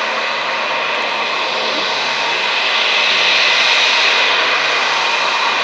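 Jet engines of an Airbus A320-family airliner running at taxi power: a steady rushing noise with a high, even whine.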